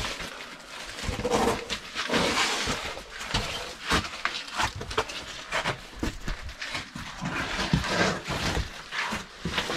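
People scrambling through a tight sandstone crevice: irregular scuffs, scrapes and knocks of boots, hands and clothing on rock, with heavy breathing and effort noises.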